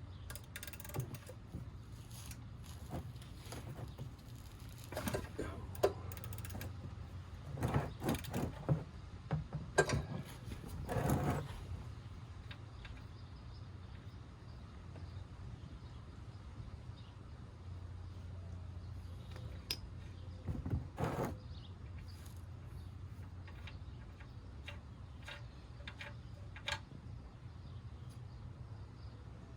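Scattered clicks, knocks and clatter of hand tools and metal parts being handled during oil-drain work, in a few short clusters, over a steady low hum.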